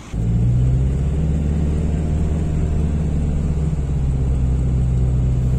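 Off-road vehicle's engine running close to the microphone at steady revs, a deep even drone that barely changes pitch.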